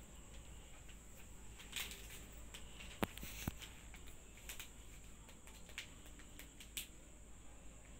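Faint crinkling and rustling of a bouquet's clear cellophane wrapper as cats nose and paw at it, with a few sharp crackles, the loudest about three seconds in.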